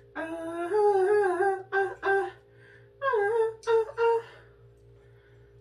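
A woman humming a wordless tune in two short phrases, the second starting about three seconds in.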